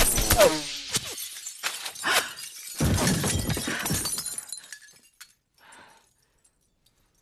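Gunfire through large windows, with glass shattering: several sharp cracks in the first two seconds, then a long crash of breaking and falling glass about three seconds in that tails off by about five seconds.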